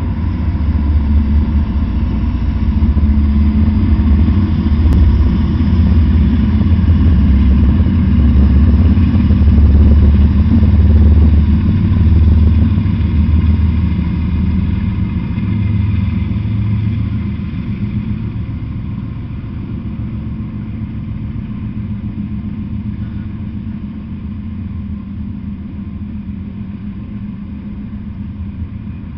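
Norfolk Southern freight train passing: the diesel-electric locomotives' engines run with a deep, steady drone, loudest about ten seconds in. After about eighteen seconds it fades to the lower, even rumble of freight cars rolling on the rails.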